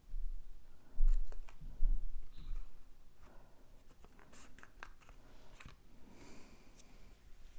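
Cardstock pieces being handled and worked by hand on a tabletop: rustling, scraping and light clicks, with two dull thumps about one and two seconds in.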